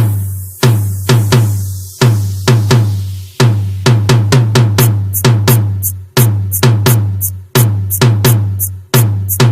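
DJ sound-check trance track: heavy booming bass-drum hits over a sustained deep bass, with sharp snare-like cracks, in a fast driving beat.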